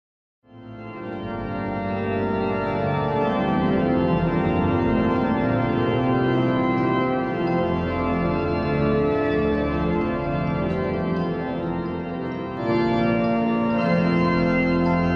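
Pipe organ playing slow, sustained full chords. It fades in over the first couple of seconds, and a louder, deeper chord comes in about two-thirds of the way through.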